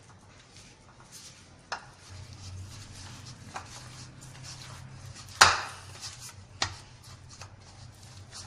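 Pita bread dough being kneaded by hand in a bowl: scattered knocks and thumps, the loudest about five and a half seconds in, over a low steady hum.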